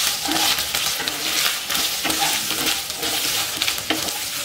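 Ridge gourd and potato pieces sizzling in hot mustard oil in a non-stick kadai, stirred with a wooden spatula that scrapes and knocks against the pan.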